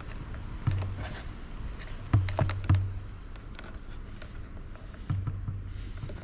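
Scattered light clicks and knocks of chainsaw fuel-line and tank parts being handled on a workbench, a handful of taps with short pauses between them.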